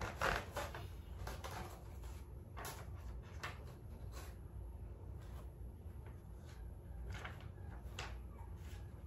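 A box and its packaging being handled and opened by hand: a string of short, irregular rustles and scrapes, over a steady low hum.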